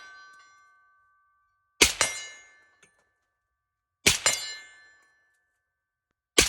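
Suppressed 7.62×39 Zastava ZPAP M70 AK rifle with a Dead Air Wolverine suppressor firing single shots about two seconds apart, twice and then a third at the very end. Each shot is followed a fraction of a second later by a metallic clang that rings on.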